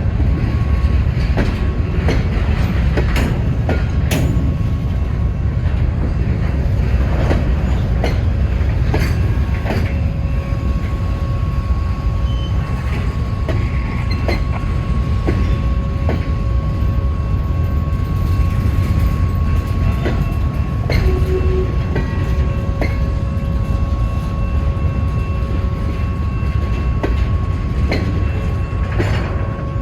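Cars of a long Norfolk Southern freight train rolling past: a steady low rumble with irregular clicks and clacks of wheels over rail joints. A thin steady squeal of wheels on rail joins about a third of the way in.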